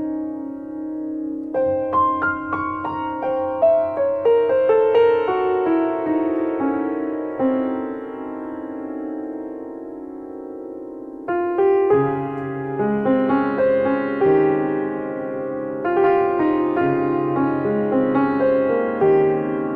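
Background piano music: a slow melody over sustained chords, settling on a held chord before a new phrase comes in about eleven seconds in.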